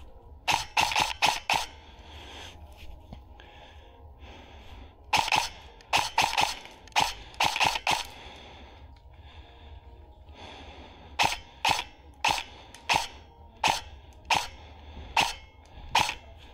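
Kings Arms M4 airsoft electric gun firing single shots in three runs: about five quick shots near the start, about ten around the middle, and about ten more roughly half a second apart toward the end.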